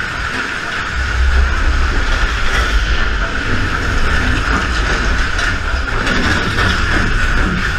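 Big Thunder Mountain Railroad mine-train roller coaster cars running along the track, heard from on board: a steady rumble and rattle of the train on its rails, growing heavier about a second in.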